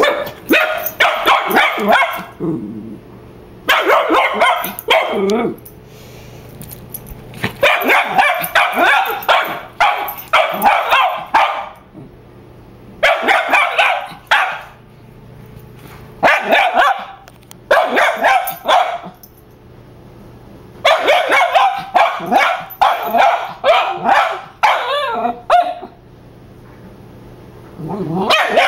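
Young dachshund barking in rapid runs of sharp, high barks, about seven bouts with short pauses between them.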